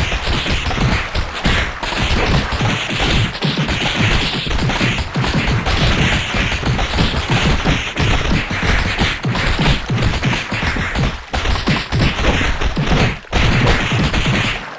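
A dense, unbroken din of overlapping crashes and thwacks, cutting off at the very end.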